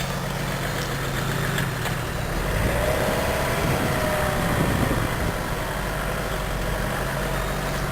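Vauxhall Frontera diesel engine running as the 4x4 is driven over rough off-road ground. A few seconds in, the engine note rises in pitch and falls back, then settles to a steady low hum.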